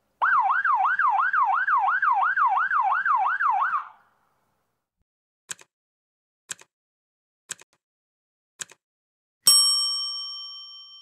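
Police siren in a fast up-and-down yelp, about three swoops a second, for nearly four seconds and then cutting off. After it come four short ticks a second apart from a countdown timer, and near the end a bell-like ding that rings on and fades as the timer reaches zero.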